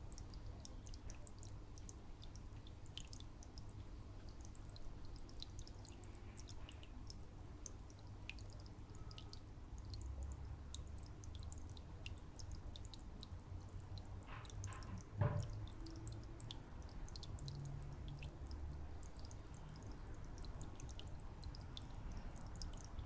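Faint water dripping and trickling in an aquarium, many tiny scattered ticks over a low steady hum. One sharp knock about fifteen seconds in.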